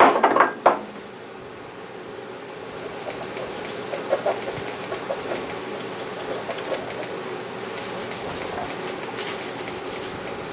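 Cloth rubbing over Kel-Tec Sub2000 metal parts as they are wiped down with solvent, in runs of quick scrubbing strokes that start and stop.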